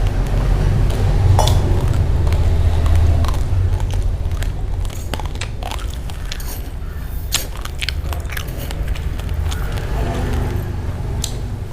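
Raw rice grains being chewed, with sharp, irregular crunches over a steady low rumble.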